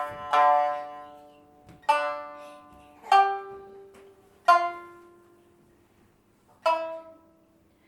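A plucked string instrument playing about five single notes, slowly and one at a time, each struck sharply and left to ring out and fade.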